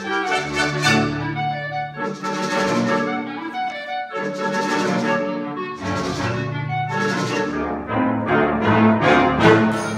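Concert band of woodwinds and brass playing a clarinet concerto, the full ensemble swelling and easing, with brief dips between fuller passages.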